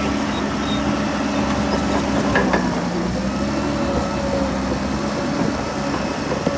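Heavy diesel engine of earthmoving machinery running steadily, with a short metallic clank about two and a half seconds in.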